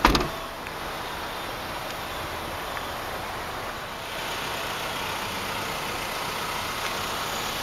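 Steady rush of road traffic passing close by, cars and trucks, mixed with a car's engine idling; a little louder from about four seconds in. A short knock right at the start.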